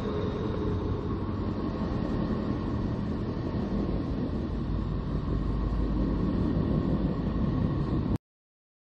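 Sonified space recording of a planet's electromagnetic emissions: a steady low drone with faint steady higher tones over it, cutting off suddenly about eight seconds in.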